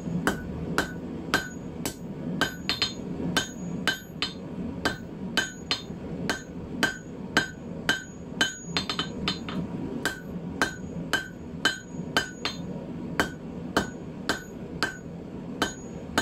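Hand hammer striking hot steel bar on the edge of a steel anvil, a steady run of blows about two a second, each with a short metallic ring. The smith is drawing out a thinned section of 10 mm round bar.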